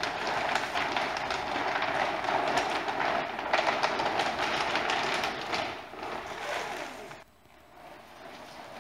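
Screacher sail cloth crackling and rustling as it is wound up on a code zero furler, stopping about seven seconds in once the sail is rolled.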